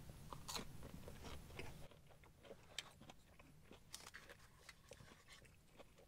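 Faint chewing of a breaded chicken nugget dipped in gravy, with scattered small mouth clicks.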